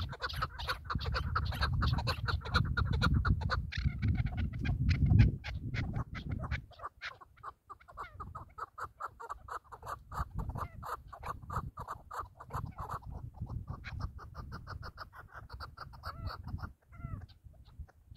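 Chukar partridges calling: a long run of rapid clucking notes, about six a second. Wind rumbles on the microphone for the first six seconds or so, then dies down.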